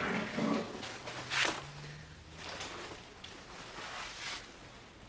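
Rustling and handling noises from a bag being rummaged through, with a sharp rustle about a second and a half in and a few softer rustles after it.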